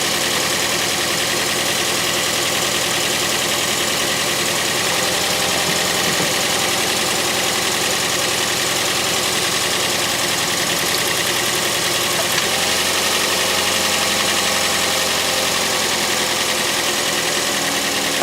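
2008 Toyota Yaris 1.3-litre four-cylinder petrol engine idling roughly, not running all that perfect, with a faulty ignition coil pack causing a misfire. The engine note changes about two-thirds of the way through.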